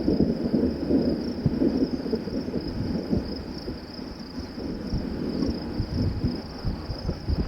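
Distant thunder rumbling from a supercell thunderstorm, strongest over the first couple of seconds and then fading. Wind buffets the microphone throughout, under a steady high insect drone.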